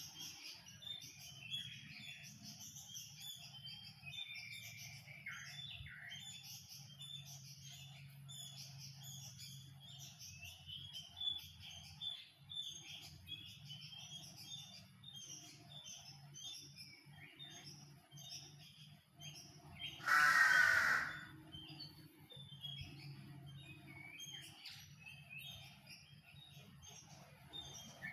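Many small aviary birds chirping and twittering over each other without pause. About twenty seconds in comes one loud, harsh call lasting about a second.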